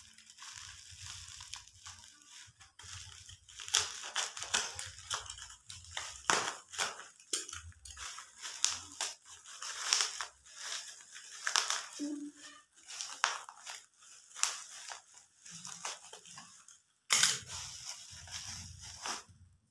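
Black plastic parcel wrapping being slit with a knife and torn open: a run of irregular crinkling and ripping, with the loudest rip about 17 seconds in.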